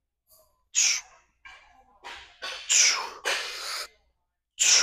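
A man's hard, sharp breaths of exertion, quick forceful exhales and gasps repeated several times as he strains through reps, the longest about three seconds in.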